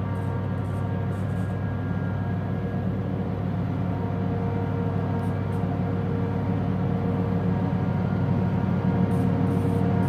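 Massey Ferguson combine engine running steadily as the combine backs up slowly, growing gradually louder as it closes in.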